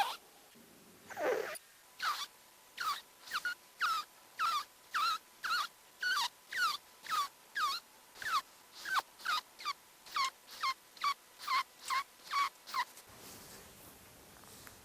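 A cat's snoring played back sped up five times, so each breath becomes a short squeak falling in pitch, about two a second, sounding like farting. The squeaks stop near the end, leaving a faint steady sound.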